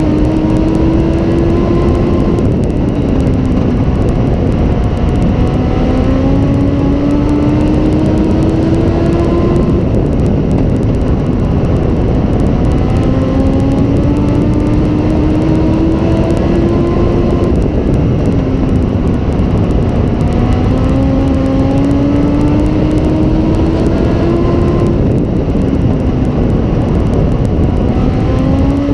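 In-car sound of a US Legends race car's Yamaha motorcycle engine at racing speed: its pitch climbs steadily along each straight, then drops and recovers as the driver lifts through the turns, repeating about every seven and a half seconds, lap after lap. A steady rush of noise runs underneath.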